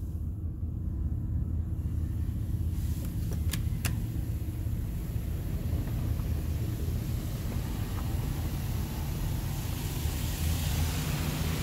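Soft-cloth tunnel car wash heard from inside a van's cabin: a low, steady rumble under a hiss of water and foam spray and cloth brushes washing over the body, which builds from a few seconds in. There are two sharp clicks close together about three and a half seconds in.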